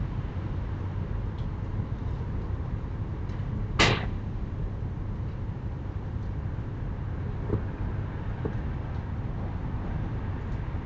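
A single sharp bang about four seconds in, with a short ringing tail, over a steady low background rumble; a couple of faint small knocks follow a few seconds later.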